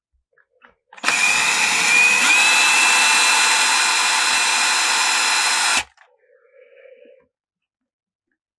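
Power drill running in one continuous burst of about five seconds, drilling the heads off small seized screws; its whine steps up slightly in pitch about a second after it starts, and it stops abruptly.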